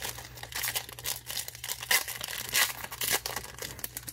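Trading card booster pack wrapper crinkling and tearing as packs are opened by hand, in irregular crackly bursts.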